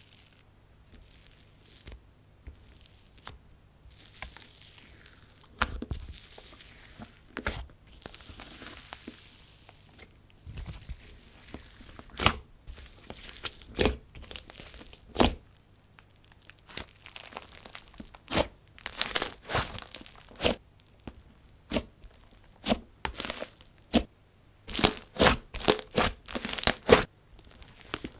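Fingers squishing and stretching a fluffy, sizzly marshmallow slime with clay add-ins, giving a run of sharp pops and crackles. The pops come more thickly and loudly in the second half.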